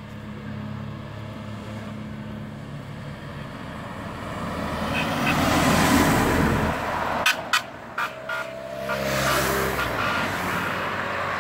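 Race convoy vehicles driving slowly past close by: the engine and tyre noise builds to its loudest as a large screen truck passes about halfway through, and a few sharp clicks follow just after it. A police car and a team car then pass, their engine sound rising again near the end.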